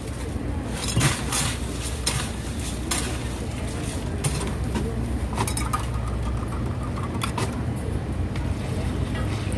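Scattered short clinks and knocks of utensils and cups while drinks are being made, over a steady low hum of passing traffic.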